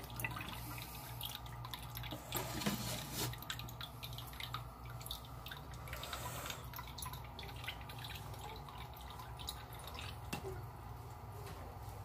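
Water splashing and dripping in a shallow tank as a dwarf caiman thrashes with its food, with many small drips and clicks, busiest in the first few seconds, over a steady low hum.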